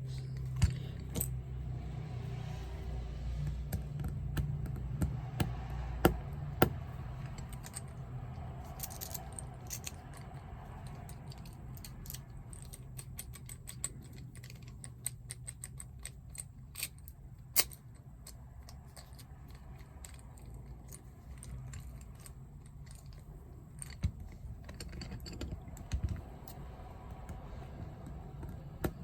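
Small metal parts of a Mul-T-Lock NE10 padlock clicking and tapping as they are handled and fitted back together, with irregular light clicks over a low steady hum.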